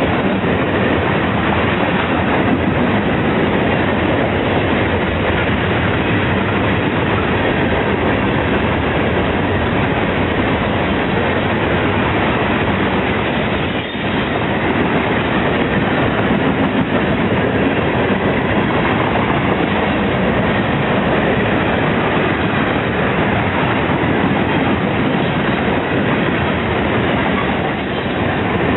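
Florida East Coast Railway freight train's cars rolling past at close range: a loud, steady rumble of steel wheels on the rails.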